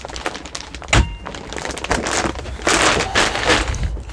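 An overhead wall-locker door above a motorhome bed is pushed shut with a single solid thunk about a second in, followed by rustling and shuffling movement.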